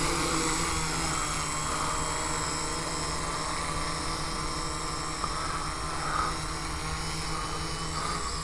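Homemade quadcopter's four electric motors and propellers running steadily as it hovers just above the ground: a steady multi-toned hum whose pitch wavers slightly as the motors adjust.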